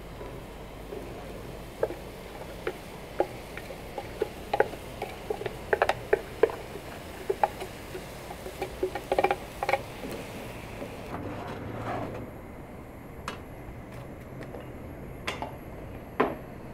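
Irregular light clicks and knocks from hands working with food and utensils, several a second at times in the first ten seconds, then only a few scattered ones.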